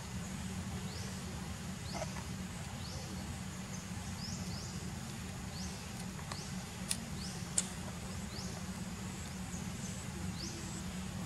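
Outdoor ambience: a steady low rumble under a thin, steady high whine, with short rising chirps repeating every second or so and two sharp clicks a little past the middle.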